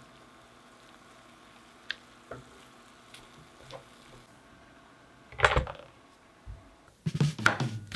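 Stir-fried duck sizzling faintly in a cast-iron skillet as wooden spatulas toss it, with a few light scrapes. About five seconds in there is one loud clatter as a plate is set down on a wooden tray. In the last second music starts along with sharp knocks.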